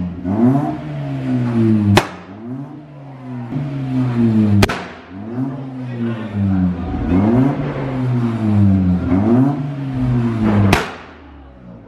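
Honda Civic hatchback's engine being revved over and over, the pitch climbing and falling back about every second or so. Three sharp bangs come through, about two seconds in, near five seconds and near the end.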